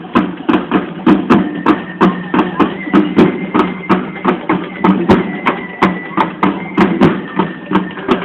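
School cadet band playing: drums beating a fast, steady rhythm, several strokes a second, over sustained pitched instruments, with a thin high note held through the middle.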